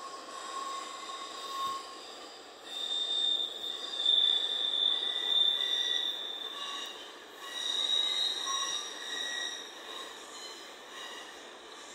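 Autorack freight train's wheels squealing on a curve: long, high-pitched squeals that swell and fade, loudest a few seconds in. It is heard played back through a computer's small speakers, with no low rumble.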